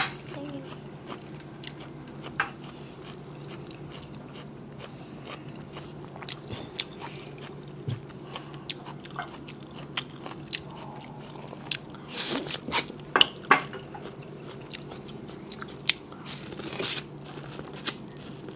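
Close-miked eating sounds: biting kernels off a cob of boiled corn and chewing, a string of short sharp bites and crunches, with a denser, louder run of them about two-thirds of the way through and again near the end.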